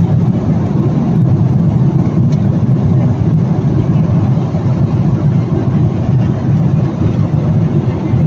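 Steady low rumble inside an airliner's passenger cabin in cruise flight: the constant drone of engine and airflow noise.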